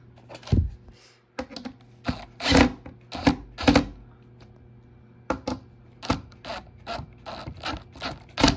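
Cordless drill run in a few short bursts to turn metal cam-lock fasteners in a particleboard drawer panel, followed by a string of sharp clicks and knocks.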